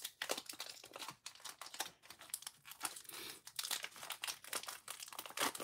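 Foil trading-card booster pack wrapper crinkling as it is torn open by hand, a rapid string of small crackles.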